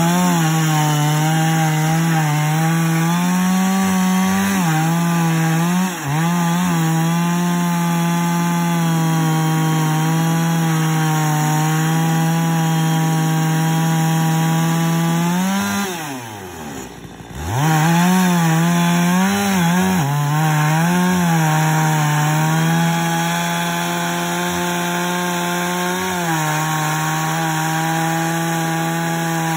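Chainsaw mounted in an Alaskan chainsaw mill running at full throttle while ripping a log lengthwise into a slab, its pitch wavering under the load of the cut. A little past halfway the engine drops nearly to idle, then revs back up and carries on cutting.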